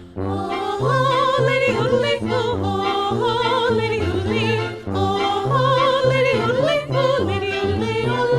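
Music: a voice singing long held notes with wide vibrato, in a classical, operatic style, over a steady low accompaniment that changes notes every half second or so.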